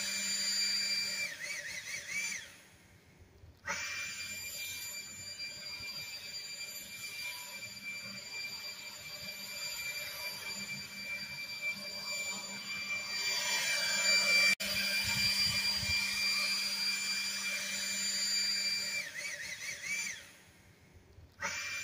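Battery-powered handheld leaf blower running with a steady high-pitched motor whine and a rush of air as it blows grass clippings off a concrete sidewalk. It winds down twice, about two and a half seconds in and again near the end, and starts back up sharply each time.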